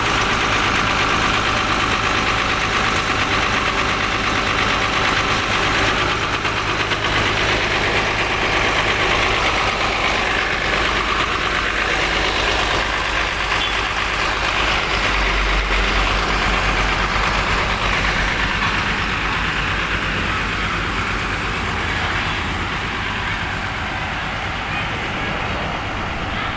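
A bus's rear-mounted diesel engine idling steadily with its engine cover open. It gets slightly quieter near the end.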